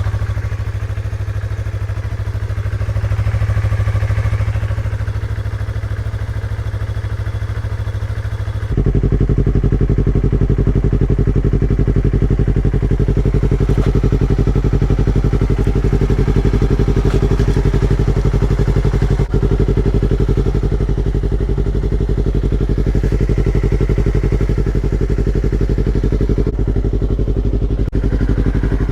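Yamaha R3's 321 cc parallel-twin engine idling steadily through an Akrapovič GP slip-on exhaust. About nine seconds in, the sound suddenly gets louder and fuller and holds there.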